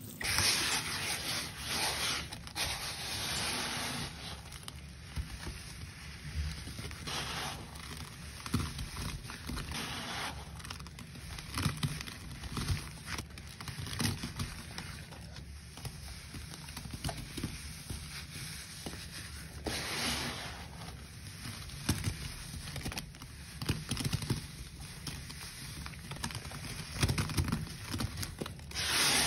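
Gritty cleaning powder wetted with lime Ajax liquid being squeezed and mixed by a rubber-gloved hand: irregular crunching and scraping, with louder bursts near the start, about two thirds of the way in, and near the end.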